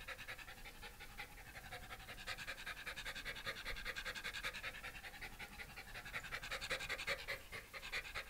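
Shiba Inu panting quickly and steadily, close up, while being petted.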